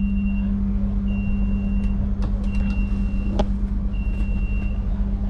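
A high electronic beep, each just under a second long, repeating about every second and a half over a steady low hum, with a few sharp clicks from the seat's control buttons.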